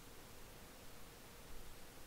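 Very faint steady hiss of room tone, with a faint steady hum underneath.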